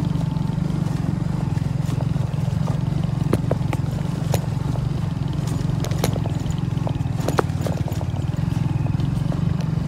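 Motorcycle engine running steadily at low revs while riding over a rough, rocky dirt track, with scattered sharp knocks and rattles from the bumps, the loudest about seven seconds in.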